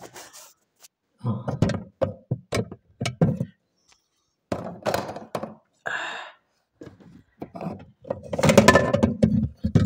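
Irregular knocks and thunks of hands and a phone handling the plastic concealed cistern and steel mounting frame of a wall-hung WC, with a brief scrape about six seconds in and the densest clatter near the end.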